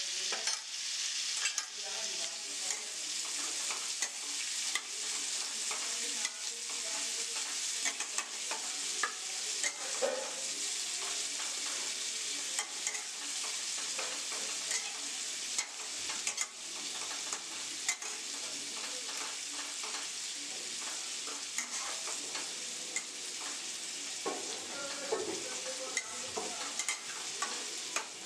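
Ground spice paste sizzling in hot oil in a stainless-steel kadai, with a flat steel spatula scraping and tapping against the pan over and over as it is stirred. The paste is ginger, poppy seed, cumin, chilli powder and green chilli.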